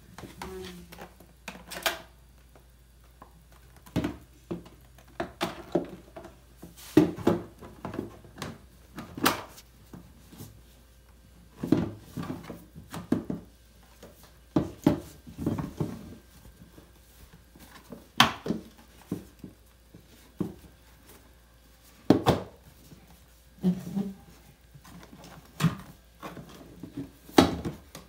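Hard plastic parts of a rice dispenser knocking and clicking as the teal container is handled and pressed onto its white base, in irregular taps and thuds every second or two.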